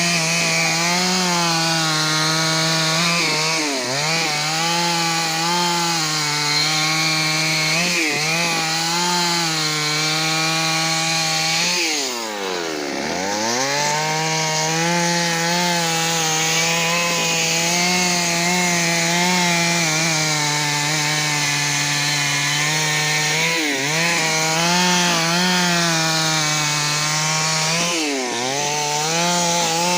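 Stihl MS 382 two-stroke chainsaw running at high revs while cutting wood. Its pitch dips briefly every few seconds, and about twelve seconds in it falls away almost to idle before revving straight back up.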